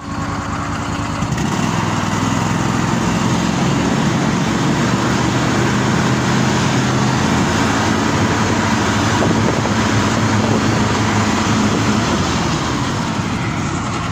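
Snowmobile engine running under way, a steady motor drone that gets louder about a second in and then holds steady.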